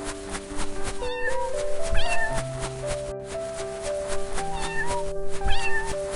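A cat meows four times, short rising-and-falling calls, over a melodic music track that plays throughout.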